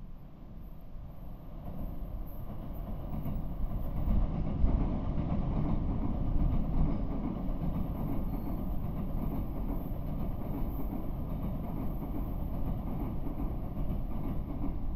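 Electric commuter train running on the rails, a steady low rumble that builds over the first few seconds and then holds, with faint wheel clatter.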